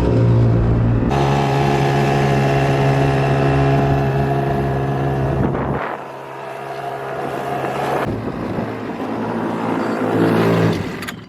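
Hankai 3.6 hp two-stroke outboard motor running steadily with an even buzz. Its pitch steps up about a second in, it drops in level around six seconds in, and it grows louder again towards the end.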